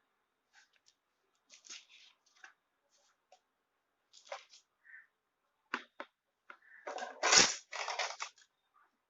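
Packaging being handled while a dosa pan is unboxed: scattered rustles and crinkles, with a louder burst of crinkling and a knock about seven seconds in.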